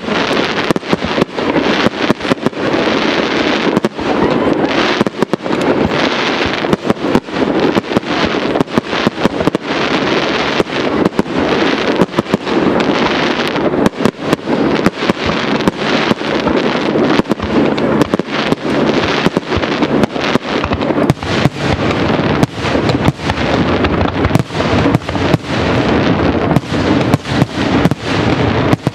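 Fireworks display: aerial shells launching and bursting in rapid, overlapping succession, many bangs a second over a continuous noisy rumble.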